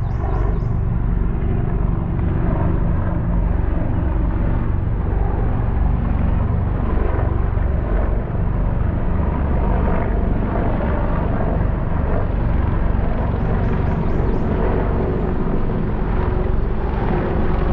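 Military aircraft flying over: a loud, steady, deep rumble.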